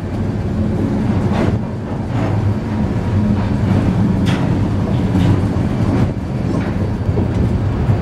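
Diesel locomotive engine running steadily as a train of covered hopper cars rolls slowly past, with a few sharp clicks from the car wheels on the rails.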